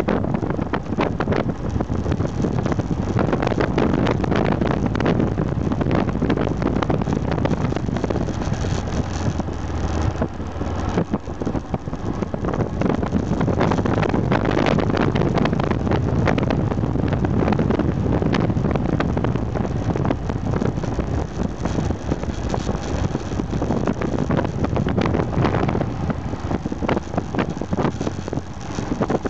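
Aprilia Pegaso 650 Strada's single-cylinder engine running at road speed under heavy wind rush on the microphone. The engine eases off briefly near the middle and again near the end, where the bike slows into a hairpin bend.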